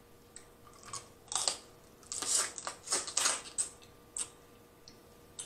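Snow crab leg shells cracking and snapping as they are broken open and peeled by hand: an irregular string of short crisp cracks and clicks, some in quick clusters.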